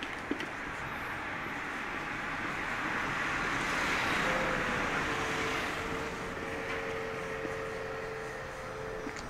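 A motor vehicle driving past on a narrow street. Its road noise swells to a peak about four seconds in and then fades, and a steady hum joins it, dropping slightly in pitch as it goes by.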